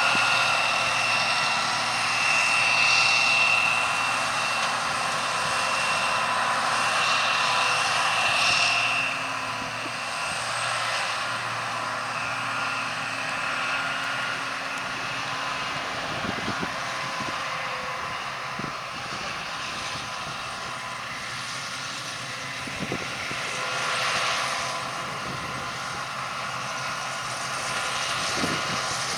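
John Deere 2054 combine harvester running while combining barley: a steady machine drone over a broad hiss, with a high-pitched whine that fades after about nine seconds.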